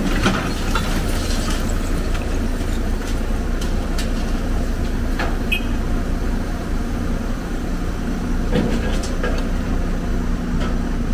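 Excavator's diesel engine running steadily, with a few scattered sharp metal clanks.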